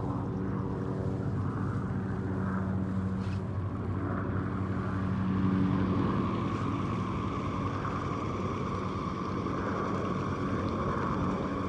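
A motor running at a steady low hum, swelling slightly about halfway through.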